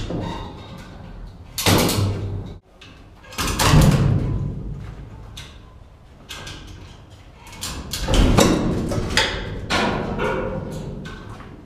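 Heavy wooden mast being dragged along tracks inside a steel hull: several bursts of scraping and knocking, with a sudden break about two and a half seconds in.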